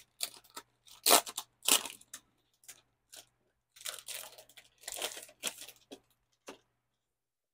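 Packaging rustling and crinkling as a hardcover diary is handled, in irregular short bursts that stop about six and a half seconds in.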